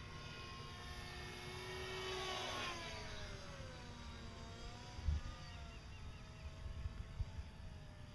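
An engine or motor passing by, its pitch sliding down as it goes past, with a few low thumps of wind on the microphone about five and seven seconds in.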